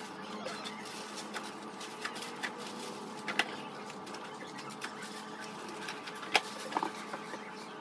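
Groceries being handled at a pantry: scattered light knocks and clicks as items are set on the shelves, along with some rustling of shopping bags, the sharpest knock about six seconds in. A steady hum runs underneath.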